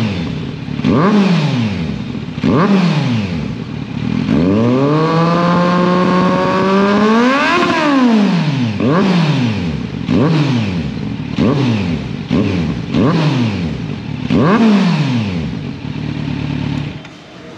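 Kawasaki Z900's 948 cc inline-four revved with its muffler removed: short, sharp throttle blips about every second and a half, with one longer rev near the middle that holds, climbs higher, then drops back.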